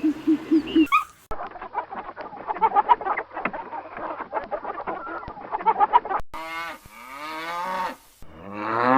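Birds calling: a short run of low, evenly spaced clucks, then a dense chatter of many birds at once, then two long calls that rise in pitch near the end.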